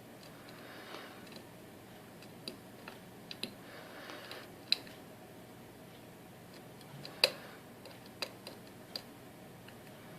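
Small irregular metallic clicks and faint scraping from a lock pick working the pin stacks of an Assa Guideline high-security lock cylinder under tension, the clicks being pins setting. The loudest click comes a little past the middle.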